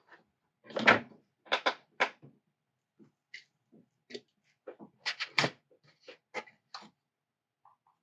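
Short clicks and knocks of small tools and plastic model parts being picked up, handled and set down on a workbench, coming in a few clusters with the loudest about a second in.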